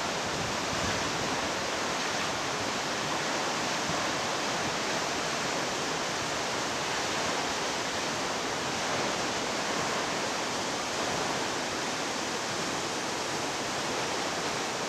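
Sutherland Falls, a very tall waterfall, pouring onto the rocks at its base, heard from close beneath it: a steady, even rush of falling water.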